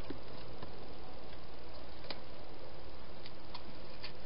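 Hedgehog chewing food: a few scattered small clicks and crunches over a steady hiss, with more of them near the end.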